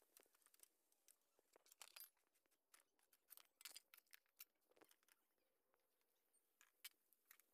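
Near silence, with a few faint, short clicks and taps of hand tools working the motorcycle's rear-wheel nuts.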